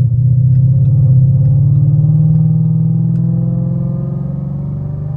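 Ford Mustang GT's 5.0-litre V8 heard from inside the cabin while driving: a steady low engine note that rises gently in pitch over the first two seconds or so under light acceleration, then levels off and eases down.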